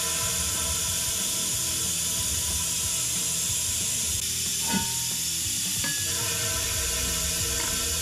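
Steady hiss of a vacuum pump drawing old fork oil out of a motorcycle fork tube through a hose, with a quick falling swish about halfway through.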